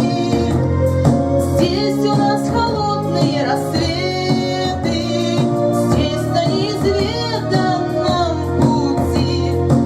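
A song: a sung voice over a full instrumental accompaniment, steady and loud throughout.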